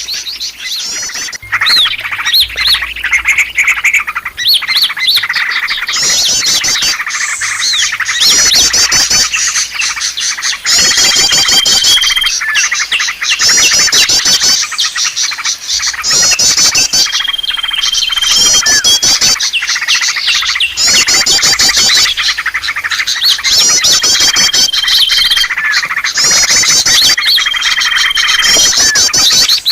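Recorded lure call of small songbirds chirping busily: fast, high twittering phrases repeat every second or so. A short, level whistle note comes in about every six seconds. It is the kind of call played to draw wild birds in.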